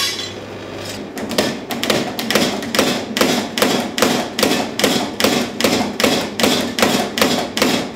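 Rapid, evenly spaced hammer blows on hot steel, about four a second, starting about a second in, as a fuller groove is forged into a practice piece of steel.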